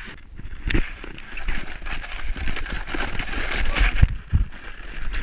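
A sled sliding over crusty snow: a steady scraping hiss, broken by irregular thumps as it bumps along, with a heavier thump near the end.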